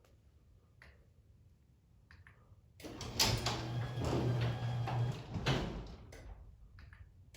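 Belt-drive garage door opener running for about two seconds with a steady motor hum and a rattle, then a sharp clunk and a few clicks, typical of the trolley catching as the opener is re-engaged.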